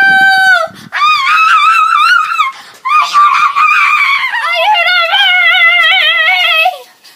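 A girl's loud, high-pitched screams: about four long held shrieks in a row, their pitch wavering, with short breaks between them. The last one stops near the end.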